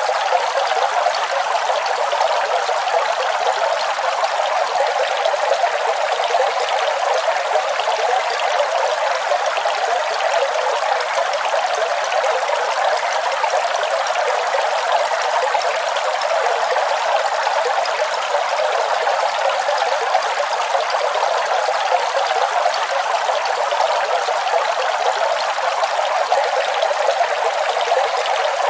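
Waterfall: water falling and splashing in a steady, unbroken rush, mostly in the middle of the range with almost no low rumble.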